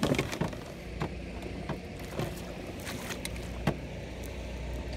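Irregular knocks and clicks of gear being handled in a small plastic fishing boat, about seven of them, over a low steady rumble.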